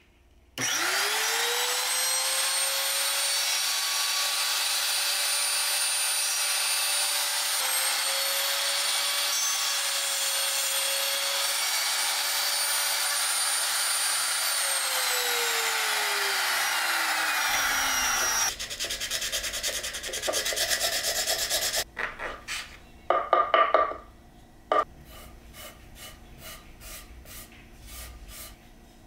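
Makita trim router switched on, spinning up quickly to a steady high whine while it cuts into a small hardwood block. It is switched off about 14 seconds later and winds down over a few seconds. Several loud knocks and clatter follow, then faint handling and rubbing noises.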